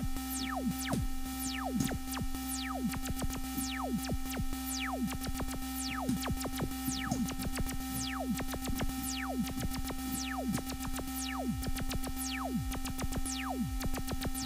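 Software synthesizer, FL Studio's 3x Osc, playing through Arturia's MiniFilter V filter plugin at 110 BPM. It gives a steady held tone with quick falling electronic zaps over it, a few each second.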